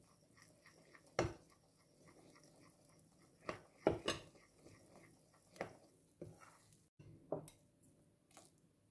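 A metal spoon clinks against a ceramic flour bowl and a glass mixing bowl, and a spatula taps the glass as flour is stirred into a wet batter. These come as a string of separate clinks and knocks, loudest about a second in and again around four seconds in.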